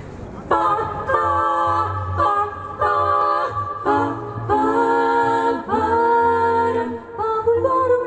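Female a cappella quartet singing in close harmony into microphones, coming in about half a second in with short held chords broken by brief pauses.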